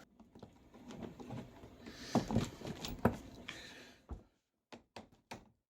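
Light knocks and clicks of a plastic ride-on's handlebar and steering rod being handled and pushed into line, with soft rubbing between them. A few sharper knocks come about two and three seconds in, then isolated clicks near the end.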